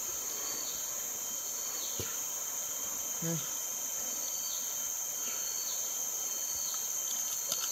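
Steady high-pitched drone of a forest insect chorus, unbroken throughout.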